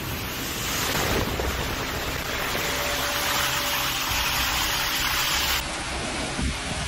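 Storm wind and heavy rain: a steady, dense rush of noise with low wind rumble on the microphone. A little before the end it changes abruptly to a different recording of pouring rain.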